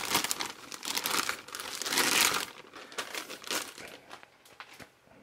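Clear plastic bag crinkling and rustling as binoculars are pulled out of it. The crackling is loudest about two seconds in, then thins to a few faint rustles in the second half.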